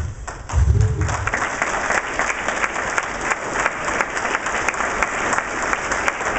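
Audience applauding: many hands clapping steadily, starting about a second in.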